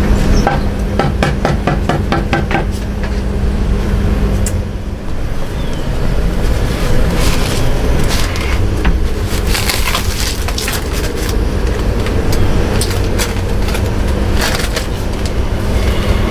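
Crackling, snapping and rustling of fiberglass insulation and ceiling debris being pulled down by hand, in bursts of rapid crackles, over a steady low machine hum.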